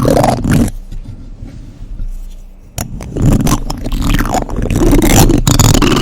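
Plastic spoons scraping and clicking directly on a microphone. The scraping fades about a second in, a sharp click comes near three seconds, and dense scraping resumes.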